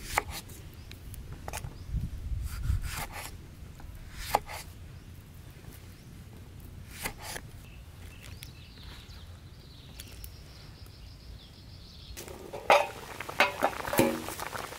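A kitchen knife slicing tomatoes, with a few sharp knocks of the blade on a wooden chopping board over the first seven seconds or so. Near the end comes the bubbling of a metal wok of water at a boil, with a few metal clinks.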